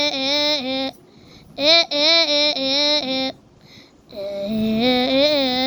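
A high, child-like voice singing short phrases of a melody, three phrases with brief pauses between them.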